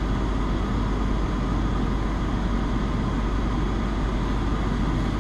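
Steady rush of a Lexus LS 460's climate-control blower running inside the closed cabin, over a constant low hum.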